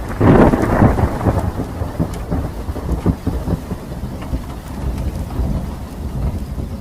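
Thunderstorm sound effect: a loud thunderclap just after the start, then rolling thunder over steady rain.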